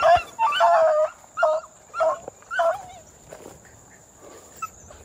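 Beagles giving tongue on a rabbit's trail: a quick run of about five short, high yelping barks in the first three seconds, then only faint distant calls.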